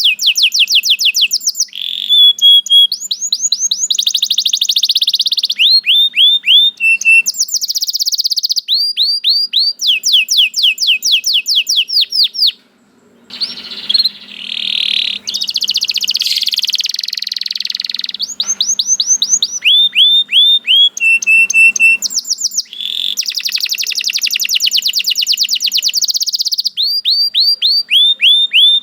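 Domestic canary singing: fast runs of repeated falling whistled notes and rolling trills, changing phrase every second or two, with a brief pause about halfway through.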